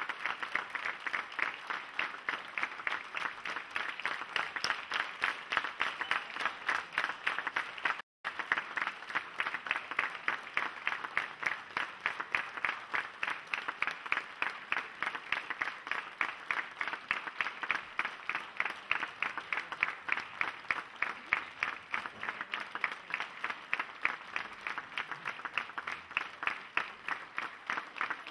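Theatre audience applauding a curtain call, the clapping falling into a steady rhythm, with a brief dropout about eight seconds in.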